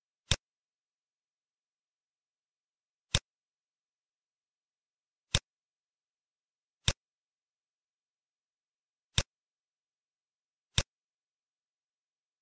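Six sharp computer mouse clicks, unevenly spaced about one and a half to three seconds apart.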